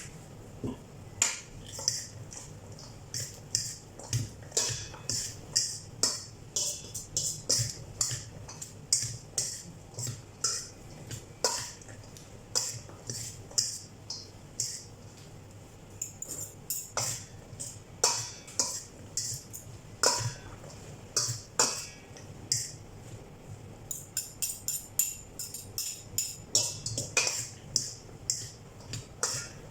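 Utensils clinking and scraping against a bowl, irregularly and rapidly, as the dressed vegetable salad is tossed.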